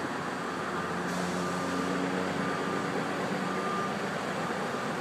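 Backup alarm of a construction vehicle beeping about once a second, over the steady running of heavy diesel machinery.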